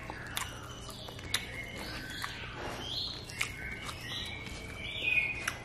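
Hand-eating sounds: fingers squeezing and mixing a handful of rice and a mouth chewing, heard as scattered sharp clicks. Short high chirps and rising glides come and go in the background, loudest near the end.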